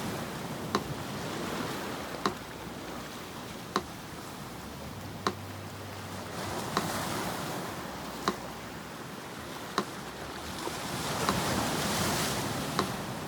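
Sea surf washing in, swelling and ebbing in slow waves, with a metronome ticking steadily about once every second and a half over it.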